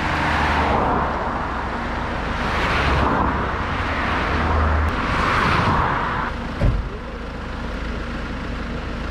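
Cars passing on a highway: three swells of tyre and engine noise rise and fade one after another over a steady low engine rumble. A single short thump sounds about two-thirds of the way through.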